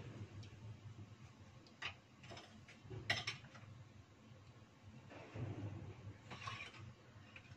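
A few faint clicks and knocks, the loudest about three seconds in, over a low steady hum.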